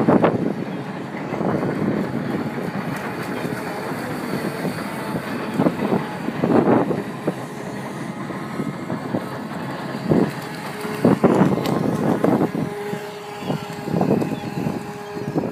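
Wind buffeting the microphone in repeated gusts over a steady outdoor rumble. A steady pitched hum comes in about three-quarters of the way through.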